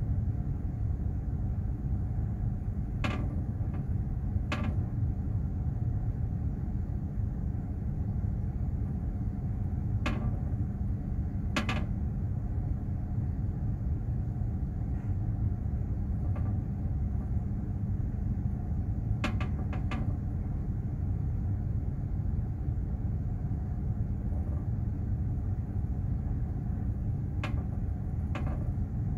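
Steady low rumble of a container ship under way, with a faint steady hum in it. A few faint clicks come in pairs about every seven or eight seconds.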